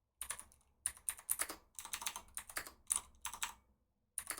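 Fast typing on a custom mechanical keyboard with clicky Cherry MX Blue switches: rapid runs of key clicks broken by short pauses, with one longer pause near the end.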